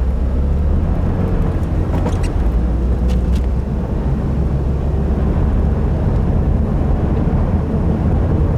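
Inside the cabin of a 2015 Subaru WRX driving on a snowy road: a steady low rumble from the turbocharged flat-four engine and the tyres.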